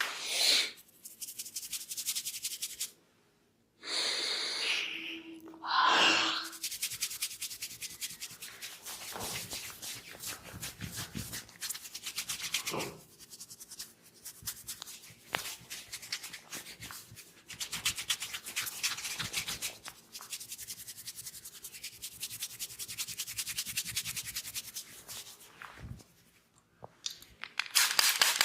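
Hands rubbing briskly through oiled hair and over the scalp during a head massage, a fast run of many rubbing strokes a second with short pauses.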